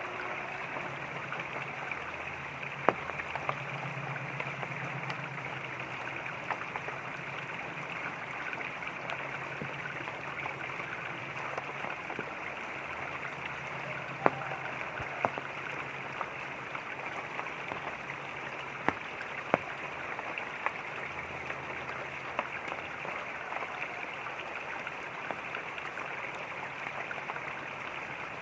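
Running water and light rain: a steady rushing hiss, with a few sharp taps of drops scattered through it.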